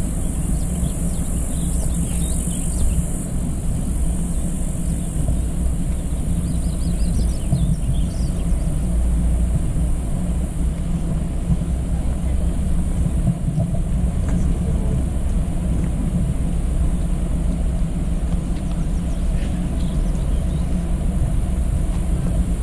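A steady low rumble of outdoor noise, with a few faint high chirps early on.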